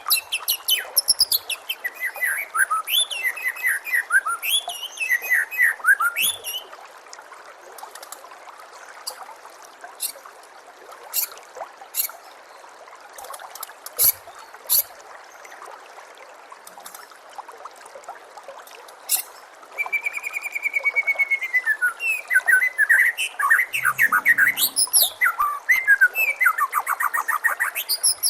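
White-rumped shama singing varied whistled phrases and fast trills over a steady trickle of water. The song breaks off about six seconds in, leaving only scattered sharp chip notes, then starts again near 20 seconds with rapid repeated trills.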